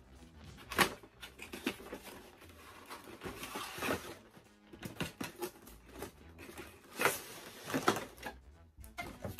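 Cardboard toy box being opened and its inner packaging slid out, with rustling, scraping and sharp cardboard knocks, loudest about a second in and again near the end when a clear plastic accessory tray is handled.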